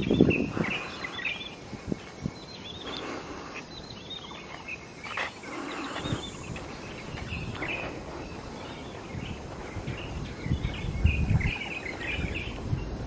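Small birds chirping in short, repeated high calls, over a steady low background of outdoor noise.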